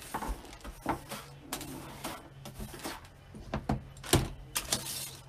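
A hand brush sweeping scraps across a craft table into a plastic dustpan: brushing rustles broken by several clicks and knocks, the loudest about four seconds in.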